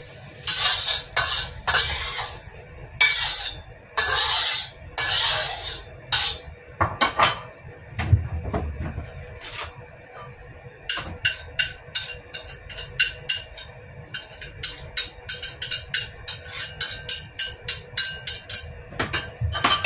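Metal spatula scraping around a wok as the cooked food is scooped out, then a long run of quick, light clicks of a utensil about three a second.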